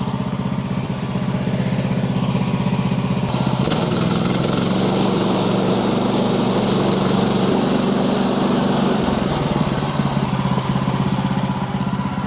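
Woodland Mills HM130 Max portable bandsaw mill running at a steady drone. A few seconds in, the band blade starts cutting into the log and a loud, hissing saw noise rides over the engine. Near the end the sound drops away.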